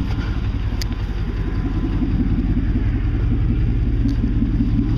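Chevy truck engine idling, with a fast, even ticking from an exhaust leak.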